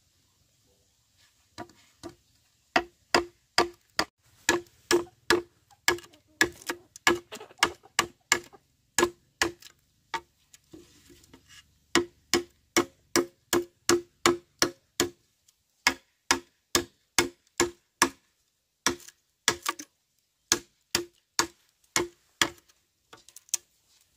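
Repeated sharp knocks, about two to three a second, with a couple of short breaks, about ten and eighteen seconds in.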